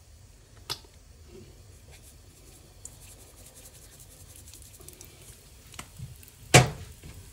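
Faint crackling and ticking of mustard, cumin and carom seeds tempering in hot oil in a saucepan, with one sharp knock about six and a half seconds in.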